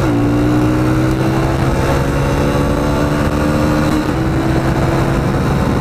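Kawasaki KLX125's single-cylinder four-stroke engine under acceleration on the road. Its pitch drops sharply right at the start, as at a gear change, then climbs slowly as the bike pulls, with wind noise throughout.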